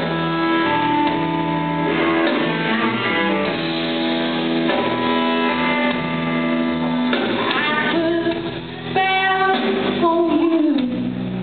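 Blues band playing live: electric guitar holding long notes over bass guitar and drums, with bending notes after about eight seconds.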